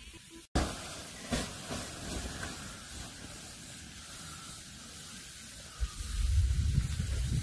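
Wind rushing over a phone microphone: a steady hiss after a brief dropout, turning into loud low buffeting about six seconds in.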